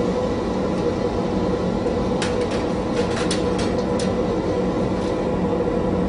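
Steady roar and hum of glassworking equipment at a lampworking bench, with a run of light clicks about two to four seconds in.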